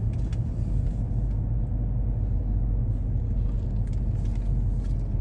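Steady low rumble of a car's engine and tyres, heard from inside the cabin as the car creeps slowly across a parking lot.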